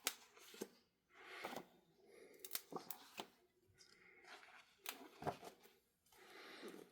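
Faint paper rustles as pages of a large, heavy book are turned, with several soft swishes and light clicks.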